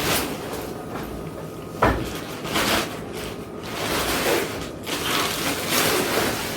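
A nested set of trolley suitcases being handled and pulled from its packaging: uneven scraping and rustling, with one sharp knock about two seconds in.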